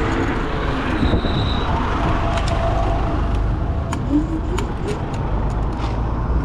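Wind rushing over the microphone of a moving electric scooter, mixed with city traffic passing close by, with sharp clicks now and then.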